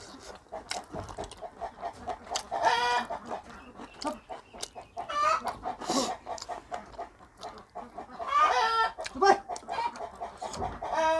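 Domestic chickens clucking and cackling close by in three bouts a few seconds apart. Short clicks and smacks of eating by hand run under them.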